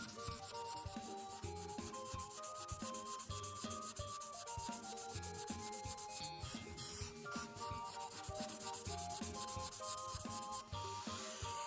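Felt-tip alcohol marker rubbing on paper in rapid back-and-forth coloring strokes, a steady scratchy scribbling.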